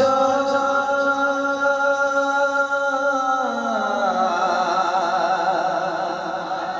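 A man singing a Punjabi naat: one long held note, then about three and a half seconds in the voice steps down lower and turns into a wavering, ornamented line.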